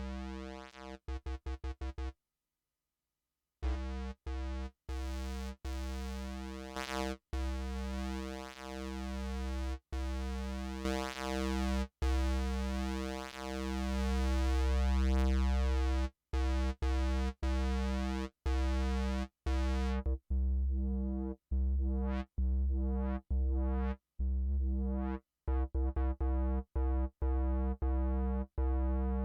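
Synthesizer music: a bass-heavy held synth chord chopped into rapid repeated stabs. It drops out briefly a couple of seconds in. In the second half the filter closes down and the sound turns duller, with short sweeps opening and closing.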